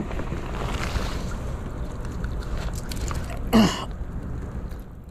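A steady low rushing rumble of outdoor noise. About three and a half seconds in comes a short, loud grunt with a falling pitch.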